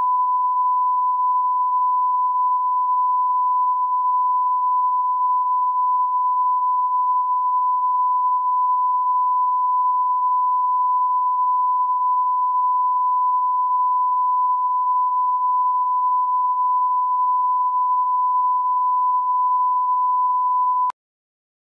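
Steady 1 kHz line-up test tone, a single pure beep played with color bars as the audio level reference for a video master. It cuts off suddenly near the end.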